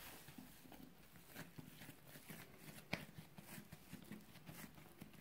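Faint handling sounds of hands pulling and shaping soft pizza dough: quiet squishes and light taps, with one sharper click about three seconds in.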